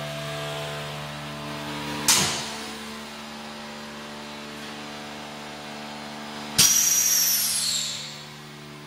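Belt-type continuous vacuum packaging machine running with a steady mechanical hum, broken by two sudden blasts of released air: a short one a little after two seconds in, and a louder, longer one past the middle whose hiss falls in pitch and fades over about a second and a half.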